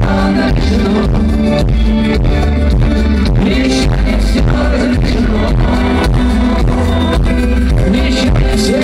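Rock band playing the song live with a steady drum beat under sustained guitar and keyboard lines.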